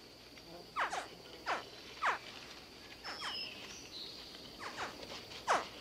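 Alligator hatchlings crying: short, high chirps that drop sharply in pitch, about one a second. A steady, high-pitched insect drone runs underneath.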